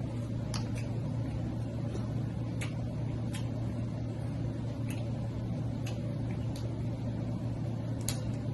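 A steady low hum in the room, with about nine scattered sharp clicks and cracks from eating snow crab legs.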